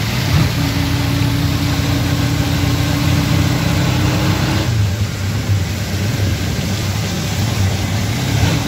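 Auto-rickshaw's small engine running steadily, heard from inside the cab, over a steady hiss of rain and wet road. A held whining tone over the engine cuts off about halfway through.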